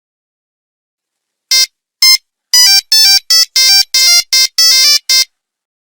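Nokia 3310 monophonic ringtone playing a short tune of about ten electronic beeping notes of changing pitch and length, starting about a second and a half in.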